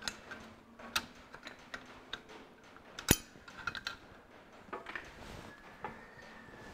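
Scattered metal clicks and light clinks of a spanner and small fuel-line fittings as the injector return line is undone on a Ferguson 23C diesel engine, with one sharper clink about three seconds in.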